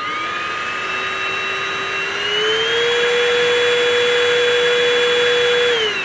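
Anko cordless handheld vacuum's motor running freely in the air: a steady high whine that steps up in pitch and loudness about two seconds in, then winds down with a falling pitch just before the end.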